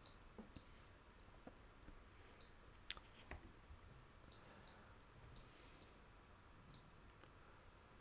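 Faint computer mouse clicks, a dozen or so at irregular intervals, over near-silent room tone.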